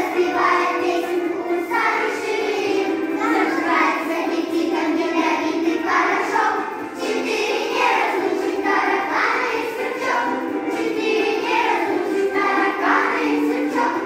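Young children's choir singing a song together, with musical accompaniment underneath.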